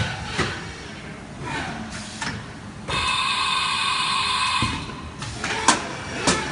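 Haas VF-2SS vertical machining center running a program: mechanical clunks and knocks, with a steady whine for about a second and a half midway while the side-mount tool changer arm swaps a tool, cutting off sharply before more knocks.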